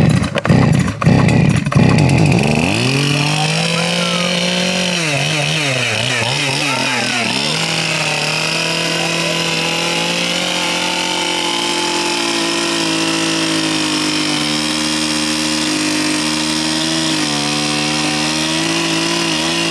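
Gas-powered Stihl Farm Boss two-stroke chainsaw pull-started: a few loud uneven bursts as the cord is pulled, then the engine catches about two seconds in and runs fast and steady, its speed wavering for a couple of seconds in the middle.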